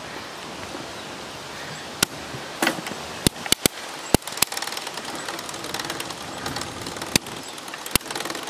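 Genesis 26-inch bicycle's gear shifter and chain clicking, with sharp clicks from about two to four and a half seconds in and two more near the end, over a steady background hiss. The rider is struggling to change gear, and the shifter will not change.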